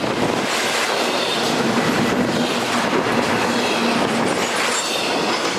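Freight train cars rolling past: a steady rush of steel wheels on rail, with faint high squeals from the wheels.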